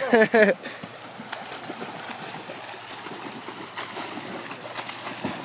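Water splashing steadily as two swimmers race along a pool, their arm strokes and kicks churning the surface, with scattered sharper splashes. A brief loud shout opens it.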